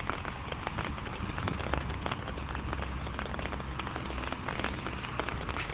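Raindrops tapping close to the microphone as a storm's rain arrives: many irregular sharp ticks over a low steady rumble.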